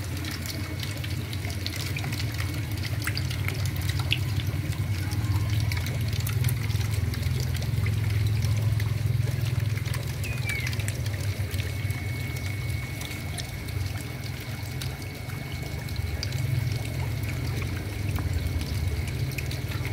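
Water pouring and trickling steadily into an eel tank: the inflow of its recirculating water system.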